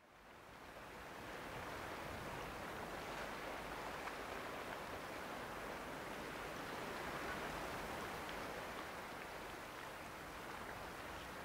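Steady rush of water, an even hiss with no distinct events, fading in over the first second or so.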